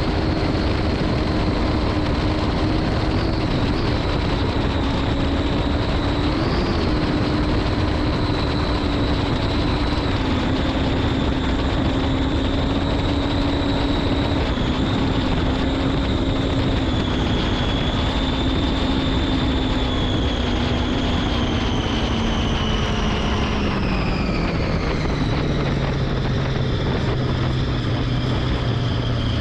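Speedboat engine running at high speed over heavy wind and water rush. Its pitch sags slowly, then drops steeply about three-quarters of the way through as the throttle is pulled back and the boat slows.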